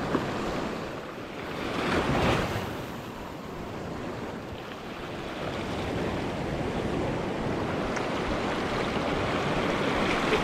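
Ocean surf surging and washing over shoreline rocks close by, a steady rush that swells about two seconds in and again near the end.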